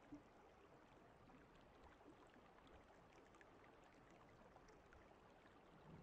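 Near silence, with only a faint steady hiss.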